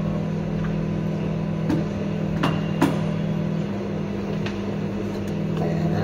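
A steady low machine hum, with a few short sharp knocks and clinks of things being handled on a counter, one ringing briefly, around the middle.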